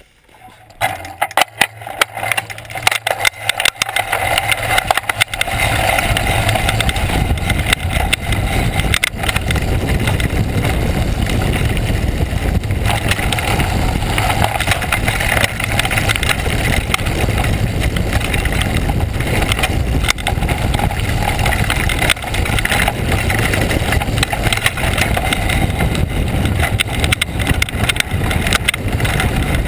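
Mountain bike rolling over a loose gravel and rock trail: a steady rumble of the knobby tyres on stones with constant rattling and knocks from the bike and its mounted camera. It starts quietly with scattered clicks and knocks, and from about five seconds in the rumble runs loud and continuous.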